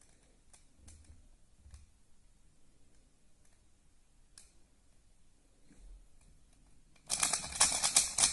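A few faint clicks and handling sounds, then near the end a loud burst of rapid clicking: a YuXin Little Magic 3x3 speed cube being turned quickly, working in the lube just applied.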